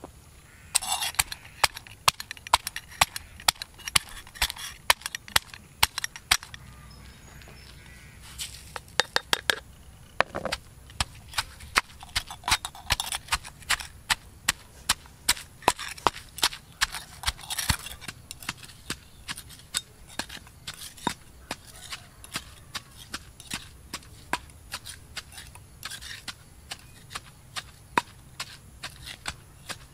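Pestle pounding red chillies, garlic and salt in a stone mortar: a long run of sharp knocks, about two a second, with short bouts of crunching as the ingredients are crushed.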